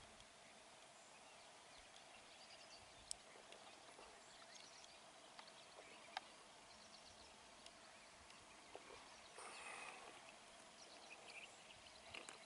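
Near silence: faint outdoor ambience with scattered faint high chirps, two sharp clicks about three and six seconds in, and a brief rush of noise near the end.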